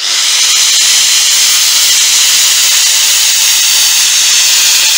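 Angle grinder with a thin abrasive disc grinding steel. It cuts in suddenly and runs steadily and loudly under load, grinding a part of the spindle end that stood slightly proud down flush.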